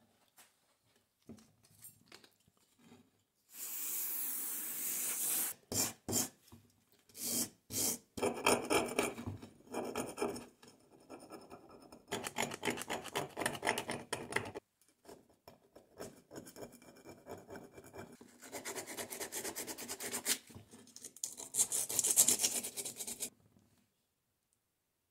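Rust being rubbed and scraped off the cast-iron parts of an old hand drill by hand, in runs of quick strokes with pauses between them. The rubbing stops about two seconds before the end.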